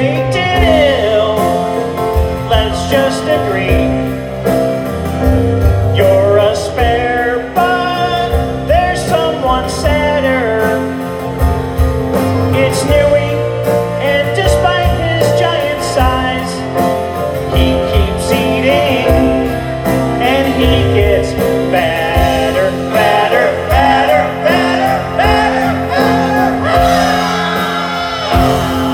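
Live band music: a man singing into a microphone over electric guitars, played through a PA in a large hall.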